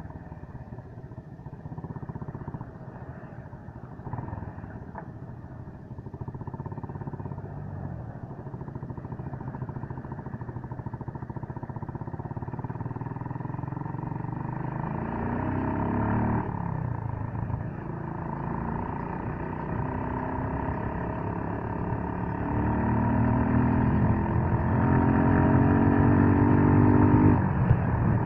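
Suzuki Gixxer 155's single-cylinder engine running on the move, its pitch rising about halfway through, dropping back, then climbing again in steps toward the end as the bike accelerates through the gears, getting louder.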